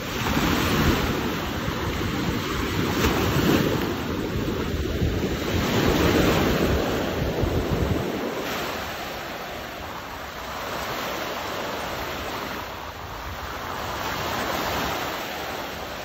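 Small Baltic Sea waves washing up onto a sandy beach and fizzing back as foam, with wind rumbling on the microphone; the rumble drops away about halfway through, leaving the lighter wash of the surf.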